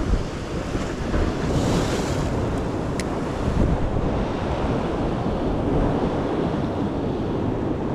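Sea surf washing against rocks, with a steady rumble of wind on the microphone. A brief burst of hiss comes a second and a half in, and a single sharp click about three seconds in.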